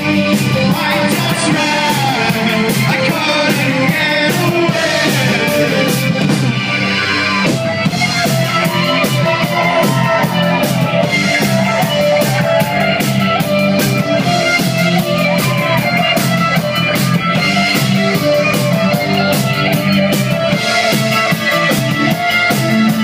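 New wave rock band playing live: electric guitar over a steady drum-kit beat, loud and continuous.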